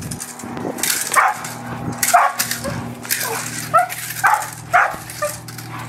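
Leashed protection-training dog barking repeatedly at a decoy in bite work, about two sharp barks a second.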